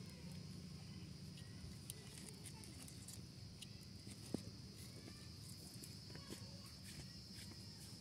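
Faint, steady high-pitched chirring of insects, with scattered small clicks and one sharp tick about four seconds in.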